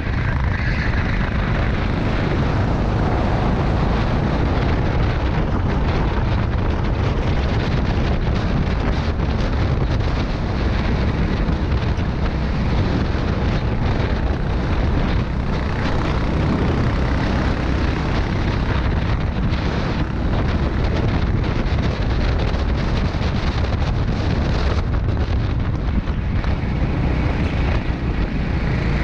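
Rental go-kart engine running hard at race speed, heard from the driver's seat, mixed with heavy wind buffeting on the microphone. The sound is steady and loud throughout.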